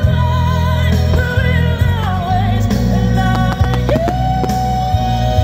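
Music: a song with a singing voice over a steady bass line.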